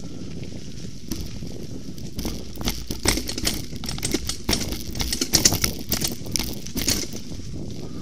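Mountain bike riding a dirt forest trail: a steady rumble of tyres on the ground, with a run of rattles and clattering knocks from about two seconds in until near the end as the bike crosses rough ground.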